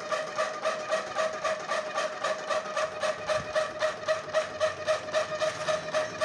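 Homemade semolina sieve machine driven by a ceiling-fan motor, running with a steady hum and an even rattling beat of about four strokes a second as the sieve shakes.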